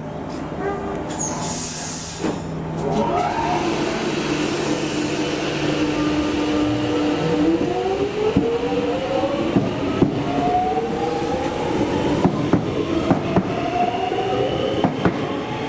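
Electric suburban train pulling away. A steady hum is heard first; from about halfway the traction motors' whine rises in pitch as the train gathers speed, with wheels clicking over the rail joints.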